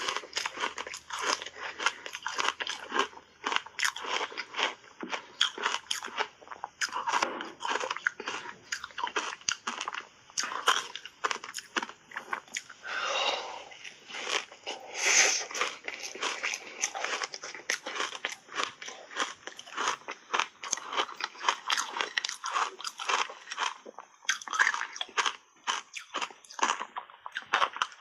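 A person biting and chewing shaved ice coated in matcha powder: dense, continuous crunching, big bites breaking into rapid crackly chewing.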